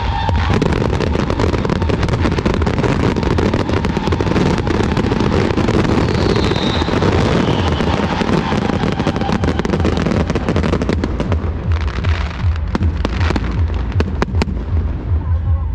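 Fireworks display: a dense, continuous barrage of aerial shells bursting and crackling. About three-quarters of the way through it thins to a few separate bangs.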